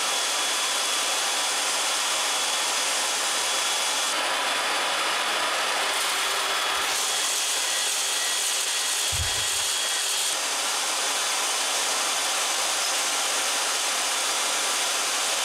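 Small vertical band saw running steadily while cutting a metal bracket piece fed by hand. A faint steady whine runs under the cutting noise, and the cutting sound changes a few times as the piece is worked.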